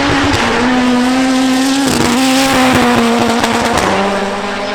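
High-performance car engine running hard at high revs. Its pitch holds steady, shifts up and down in sudden steps a few times, and drops to a lower note near the end as the sound starts to fade.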